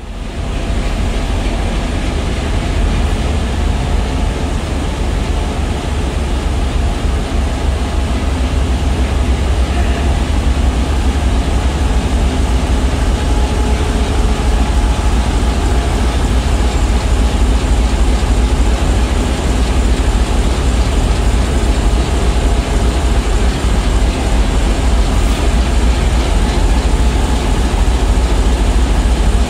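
Dongfeng 11G (DF11G) diesel locomotive's engine running with a heavy, steady low rumble as it draws slowly up to the train for coupling. It grows louder over the first few seconds as the locomotive nears, then holds steady.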